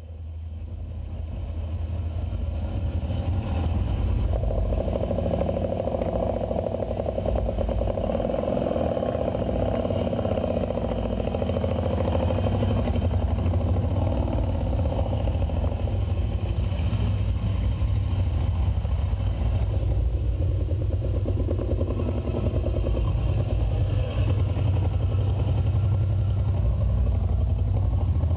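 Engines of old motorcycles running steadily as the bikes ride a rough dirt track. This is a film soundtrack heard through a hall's loudspeakers. The sound fades up over the first few seconds.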